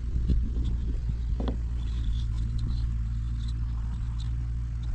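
A steady low mechanical hum, with a few light knocks and clicks.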